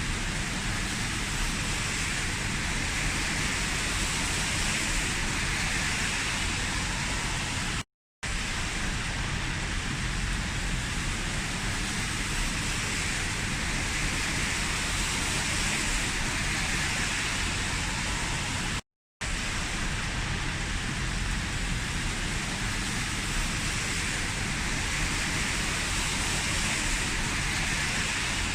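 Heavy rain falling steadily, an even hiss with a deep rumble underneath. The sound cuts out completely for a split second twice, about a third of the way in and again past the middle.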